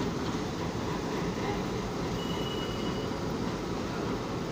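Diesel locomotive rolling slowly past at close range: steady low engine and running noise, with a brief thin high squeal about two seconds in.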